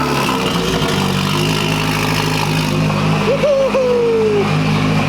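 2018 Subaru WRX's turbocharged 2.0-litre flat-four idling just after start-up through the J-pipe only, with the cat-back exhaust and mufflers removed, so it runs loud and unmuffled. The idle shifts about a second in, then holds steady.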